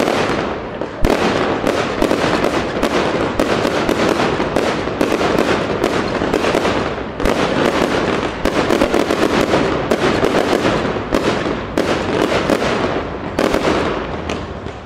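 Fireworks display: a rapid, continuous string of bangs and crackling from bursting aerial fireworks, growing quieter near the end.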